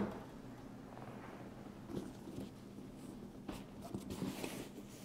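Faint rustling and a few light taps of hands handling a nylon soft carrying case, mostly in the second half.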